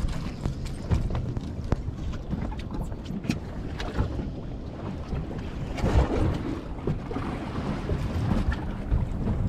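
Wind buffeting the microphone in the open, a steady low rumble, with water splashing against a small boat's hull and scattered short knocks.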